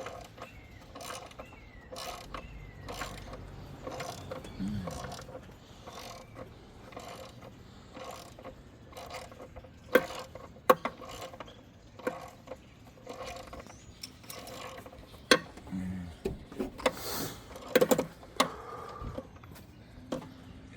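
Hand ratchet wrench clicking in short runs as intake manifold bolts are worked loose, with a few sharp metallic clinks of tools against the engine.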